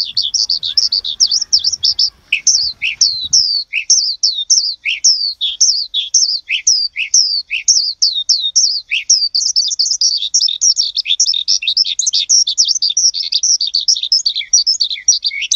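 Birds chirping rapidly and without a break, several short high notes a second, many of them sliding downward. A faint low outdoor rumble beneath them stops abruptly about three and a half seconds in.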